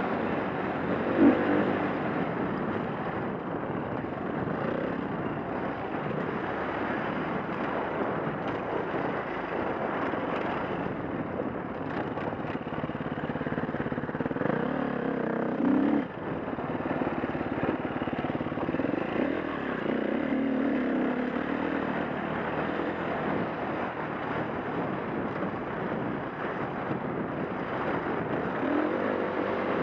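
A 2011 KTM 350's four-stroke single-cylinder dirt-bike engine under way, its note rising and falling with the throttle. The sound drops out briefly about sixteen seconds in.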